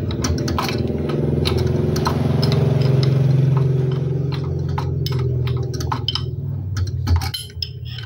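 Metal clicks and clinks of a steel wrench and a bolt-type puller as the puller is worked to draw a piston pin that has seized from running dry out of a scooter piston, over a steady low hum.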